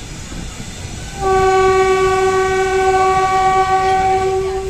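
Passenger train's locomotive horn sounding one long, steady blast that starts about a second in and lasts about three and a half seconds, over the low running rumble of the coaches on the track.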